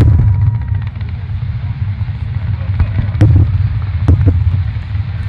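Aerial fireworks shells bursting: a sharp bang right at the start, then several more bangs about three to four and a half seconds in, over a steady low rumble.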